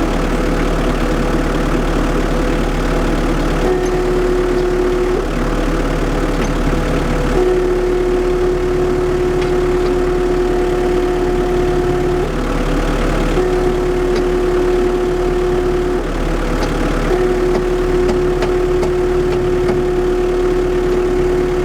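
JCB Midi CX compact backhoe's diesel engine idling, with a steady whine from the rear hydraulic section that cuts in and out about four times. The whine is a noise of unknown cause that stops when the brakes are pressed.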